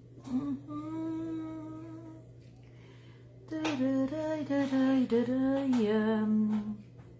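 A woman humming: one long held note, then after a short pause a sung phrase of held notes that ends on a lower, longer note.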